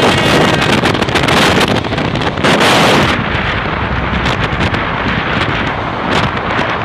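Wind buffeting the microphone on a moving motorcycle, over the rumble of a passenger train running close alongside. A louder gust comes a little before halfway, then the hiss eases.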